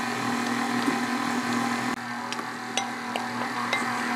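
KitchenAid Artisan stand mixer running at low speed, its flat beater turning through stiff cookie dough with a steady motor hum. Several light clicks and taps come in the second half.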